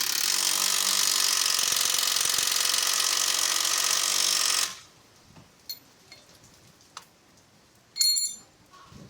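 A power tool runs steadily with a buzzing tone for about four and a half seconds, then stops abruptly. A few light clicks follow, then a short, sharp metallic clink near the end.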